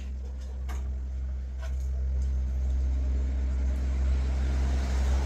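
A motor vehicle's engine rumbles and grows gradually louder, as if approaching, with a few light clicks of cutlery on plates in the first two seconds.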